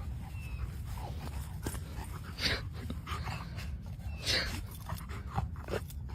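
A dog making a few short, breathy puffs, like panting or snuffling, over a steady low rumble.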